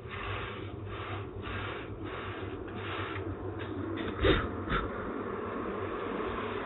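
Repeated rubbing strokes, about two a second, then two sharp clicks about half a second apart, over a steady hiss.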